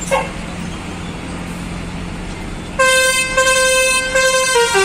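Tour coach's musical multi-tone horn (a 'telolet' horn) playing a tune of stepping notes, starting loudly about three seconds in. Before it, the coach's engine runs with a steady low hum, with a short rising chirp right at the start.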